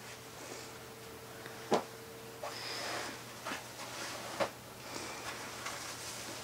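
Denim jeans being picked up and turned over by hand: soft fabric rustling with a few light knocks.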